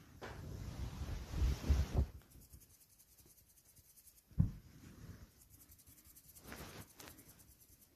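Scratchy rubbing and rustling on a shaggy rug, with soft low thumps. It is loudest for the first two seconds, with one thump about four and a half seconds in and more rustling near the end.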